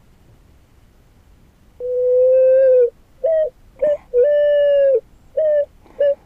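A pigeon cooing loudly in a repeating pattern, starting about two seconds in: a long low coo, a couple of short ones, then another long coo, like the song of the picazuro pigeon (asa-branca).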